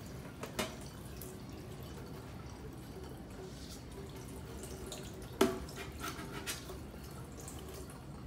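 Water dripping faintly from a kitchen faucet's pull-down spray head into a stainless steel sink while its aerator is cleaned for low water pressure. A few small sharp metal clicks come from the work on the spray head, the loudest about five and a half seconds in.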